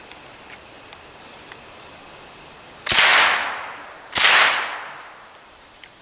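Two single shots from a 9mm Uzi submachine gun, a little over a second apart. Each one trails off over about a second.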